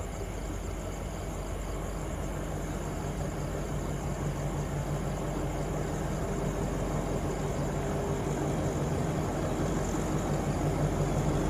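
Alsthom diesel-electric locomotive approaching at the head of a passenger train. The engine's low hum grows steadily louder.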